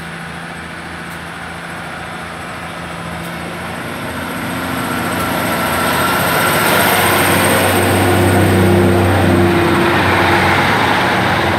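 Class 150 Sprinter diesel multiple unit pulling away from the station, its diesel engines growing louder over several seconds as it accelerates. A thin high whine rises in pitch through it.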